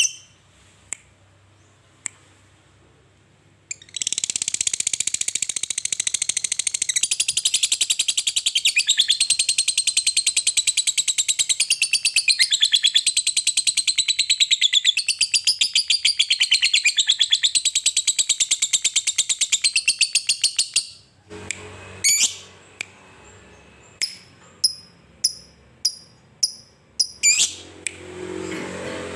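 Lovebird singing its long 'ngekek': a continuous, very rapid high-pitched chattering trill that starts a few seconds in and runs unbroken for about seventeen seconds. Before it come a few single sharp chirps, and after it a string of short sharp chirps.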